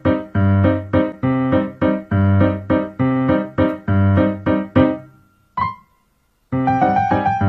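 Background piano music playing a steady, repeating pattern. It fades out about five seconds in, a single short ringing tap sounds, and after a brief silence the piano music starts again.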